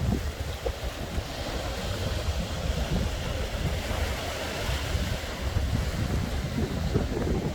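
Sea waves breaking and washing on the shore, one wash swelling and fading in the middle, while strong wind buffets the microphone with a gusting low rumble.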